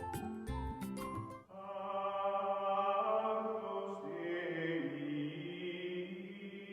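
Outro music: struck, plucked-sounding notes that give way about a second and a half in to a sustained chant-like drone of held notes, its pitch shifting slowly.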